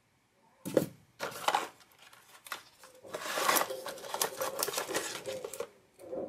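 Hands taking plastic accessories and cables out of a styrofoam packaging tray. A few sharp clicks and knocks come about a second in, then a longer stretch of rustling, scraping and clicking.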